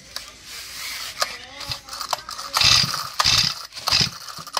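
Four-stroke OHV brush-cutter engine being pull-started: after a few light handling clicks, three quick pulls of the recoil starter, about half a second apart, crank it over with a ratcheting whirr, each pull stopping short without the engine running.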